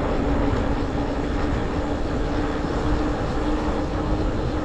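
Vehicle travelling along a road: a steady engine hum holding one pitch over a continuous rumble of road and wind noise.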